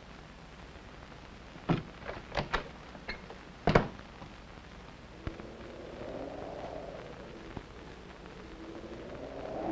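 A few sharp knocks and thuds, the loudest just before the middle, followed by soft soundtrack music that fades in during the second half and grows louder near the end.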